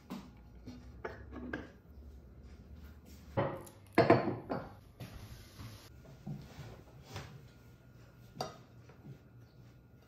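Ceramic dishes (a cup, saucer and plate) knocking and clinking as they are set down and handled on a table: a scattering of separate knocks, the loudest about four seconds in.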